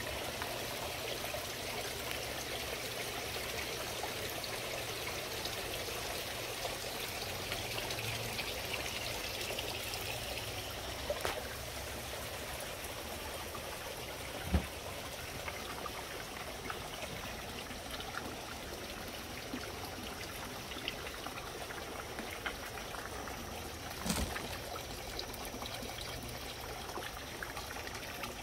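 Water steadily trickling and pouring from small garden fountains, with water spilling over the lips of glazed urn fountains into a pond. Two brief soft knocks break in, about halfway through and again near the end.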